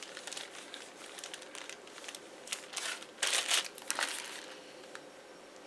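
Clear plastic bag crinkling as hands dig into it and pull pieces off a white lump of modelling material, in irregular crackles, with a louder burst of handling about three seconds in that then thins out.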